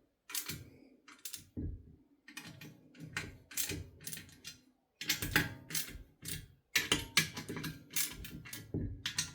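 Irregular runs of sharp metallic clicks and taps from a hand tool working the stainless bolts that hold the heating element to the boiler, with short pauses between runs.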